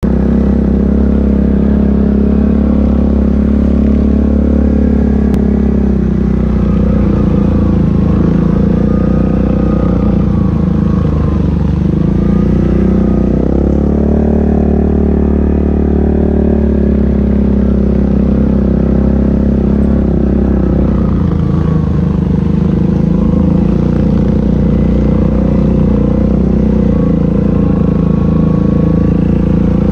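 ATV engine running steadily at a fairly even pitch, loud and close from the quad being ridden.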